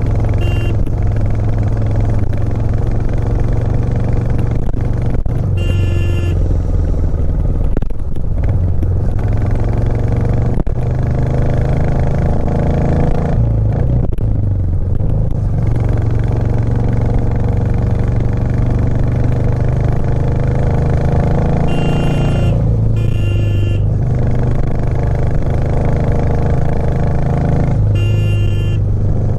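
Royal Enfield Classic 350's single-cylinder engine and exhaust running steadily under way. The note shifts in pitch a few times as the revs change.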